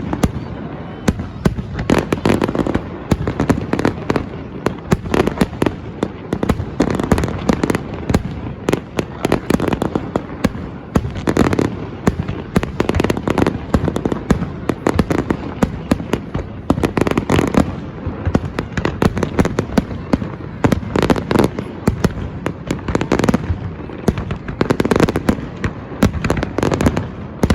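Fireworks display: a dense, continuous run of bangs and crackling, with overlapping bursts every second or two.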